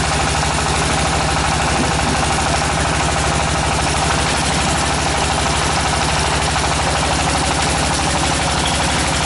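Tractor engine of a tractor-mounted water well drilling rig running steadily at a constant speed with an even, rapid beat.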